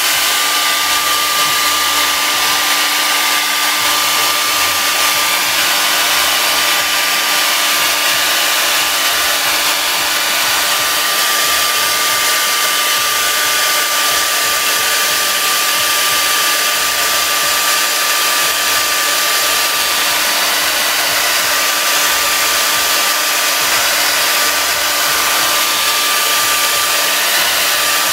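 Handheld hair dryer running steadily on its hot setting: a constant rush of blown air with a steady high whine, unchanging throughout.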